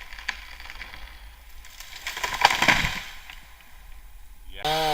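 A tree going over as it is felled: scattered cracks and snaps of wood, building to one loud crash a little past two seconds in, then fading.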